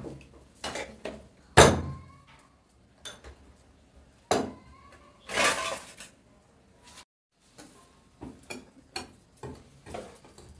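Kitchen items knocking and clinking on a countertop, the loudest knock about one and a half seconds in. Near the end a wire whisk taps quickly and repeatedly against a glass mixing bowl as it stirs dry flour.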